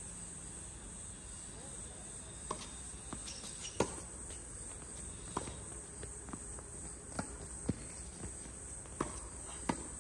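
Tennis balls being struck and bouncing on a court in a rally: about nine sharp pops at irregular intervals of roughly half a second to a second and a half. A steady, high-pitched insect drone runs underneath.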